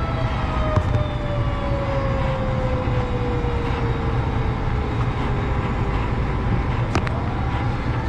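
Steady low machinery drone with a tone that slowly falls in pitch for about six seconds, and a sharp click about seven seconds in.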